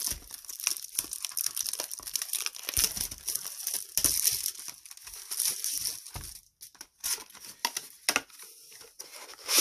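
Plastic shrink-wrap crinkling and tearing as it is stripped off a sealed trading-card booster box, with dense sharp crackles that thin out after about six seconds into a few scattered rustles and knocks.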